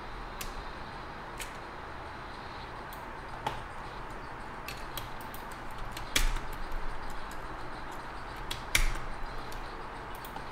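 Scattered sharp clicks and taps from computer input at a desk, mouse and keyboard, over a steady low hiss. The clicks are irregular, with the loudest about six seconds in and again near nine seconds in, each followed by a short run of softer ticks.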